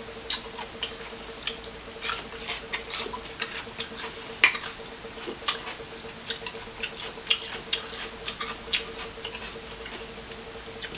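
Close-miked eating sounds: irregular sharp clicks and cracks from chewing and from crab-leg shells and shrimp being handled, several a second, over a steady low hum.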